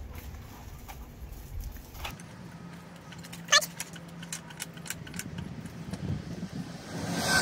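Hydraulic floor jack being worked under a camper trailer's axle: one sharp metal clank about halfway through, then a run of light clicks as the handle is pumped. The wheels are being raised just clear of the ground so they can spin.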